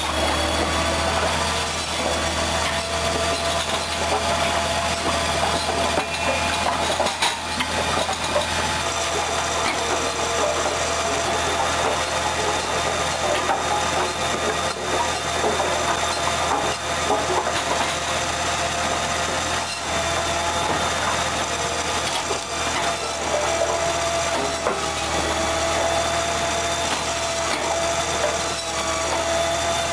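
Firewood processing machine's powered saw cutting logs into rounds over the steady hum of its motor, with scattered knocks of logs and cut pieces against the machine.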